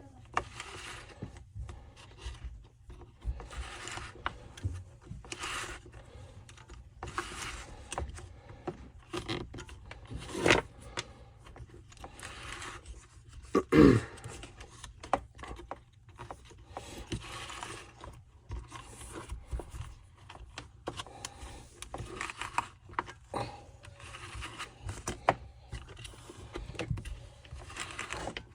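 Hands working small saw parts on a bench: repeated short scrapes and rattles, with one louder scrape about halfway through.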